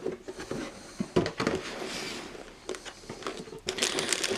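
Cardboard model-kit box being opened and handled: scattered knocks and scrapes of the lid and box, then a quicker run of rustling near the end as the bagged plastic parts are handled.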